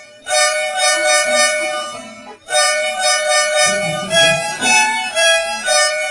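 Bus horn sounding a steady two-note chord in two blasts: one of about two seconds, then a longer one in which the pitch steps up and down between notes before settling back on the chord.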